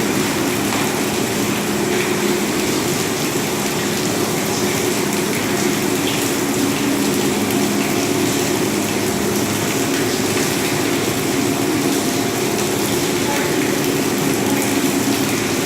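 Steady machinery noise: a constant hum with a rushing, water-like hiss that does not change.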